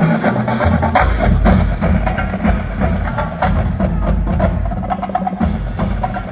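Marching band music with prominent percussion: many sharp struck hits over sustained brass and a heavy low bass.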